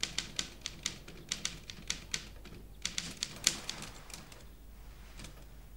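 Manual typewriter being typed on: an irregular run of sharp key clacks that thins out near the end.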